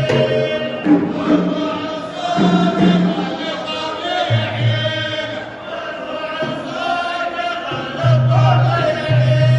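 A troupe of men singing a chant together in unison, with long held notes that rise and fall.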